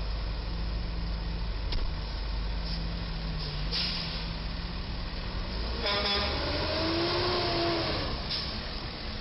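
Heavy trucks' diesel engines idling at an intersection, with a short hiss a little under four seconds in. About six seconds in, a loud horn-like tone sounds for about two seconds, rising and then falling in pitch.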